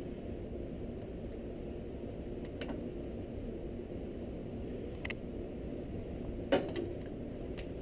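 Gas stove burner running with a steady low rush under an aluminium llanera of caramelizing sugar, held and swirled with metal tongs. A few light metal clicks and taps come as the mold shifts against the tongs and grate, the loudest about six and a half seconds in.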